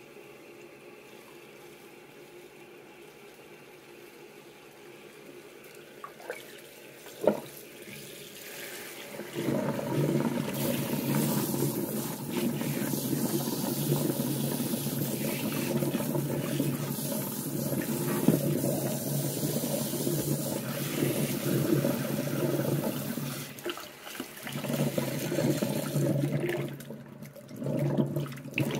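After a quiet stretch with two short knocks, running water starts about nine seconds in and pours steadily into a sudsy sink and over a small dog's coat as the shampoo is rinsed off, dipping briefly twice near the end.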